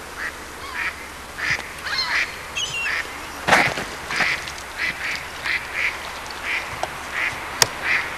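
Ducks at a pond quacking, a quick run of more than a dozen short calls. A louder rush of noise comes about three and a half seconds in, and a sharp click near the end.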